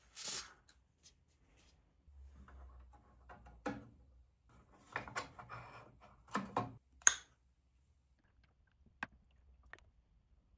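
Handling noises of a small model steam engine being readied by hand: scattered short clicks, taps and scrapes as the burner is set into the sheet-metal firebox under the boiler, with one sharp click about seven seconds in the loudest.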